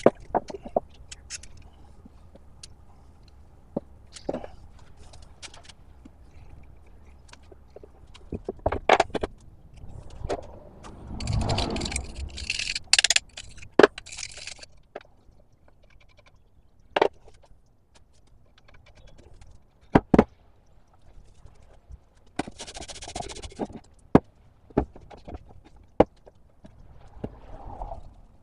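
Scattered metal clinks, knocks and scrapes of hand tools and loose iron parts being handled on a 100-year-old Buffalo Forge No. 151 hand-crank drill press as it is taken apart. A longer rasping stretch comes about halfway through, and a short hiss comes about four-fifths of the way in.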